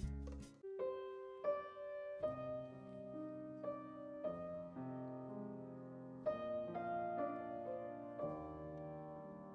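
A Steinway grand piano played softly and slowly: gentle chords and single notes that ring on and overlap. The tail of a louder music sting cuts off about half a second in, just before the piano starts.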